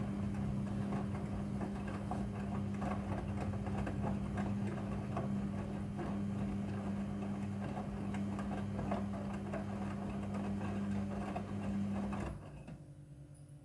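Midea front-loading washing machine running: a steady motor hum under a busy clatter, which stops suddenly about twelve seconds in.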